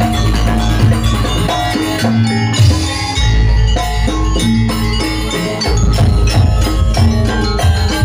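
Gamelan dance accompaniment: metallophones ringing out repeated melodic notes over drums and a deep bass, the music for a janger Garuda bird dance.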